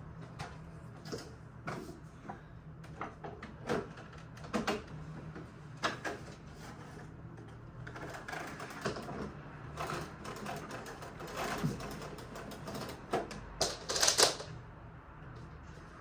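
Household handling noises: irregular clicks, knocks and clatter of objects being moved and set down during housework, loudest about fourteen seconds in, over a steady low hum.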